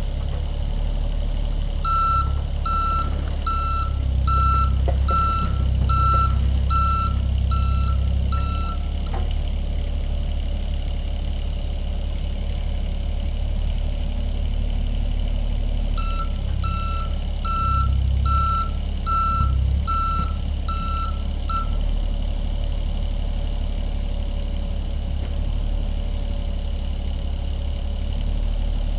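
Mini excavator's diesel engine running steadily, with its travel alarm beeping about once a second in two runs: one starting about two seconds in for about seven seconds, one past the middle for about six seconds. The engine rumble swells while the alarm sounds, as the machine tracks and works under load.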